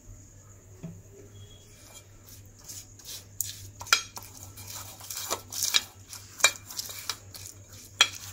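Silicone pastry brush scraping and dabbing over parchment paper in an aluminium cake tin, with irregular light knocks and clicks against the metal tin starting about two seconds in.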